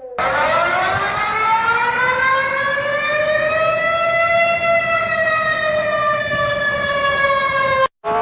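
A warning siren sounds one long, slow wail. Its pitch rises for about four seconds, then slowly falls, with a rumble underneath. It cuts off abruptly near the end and starts rising again.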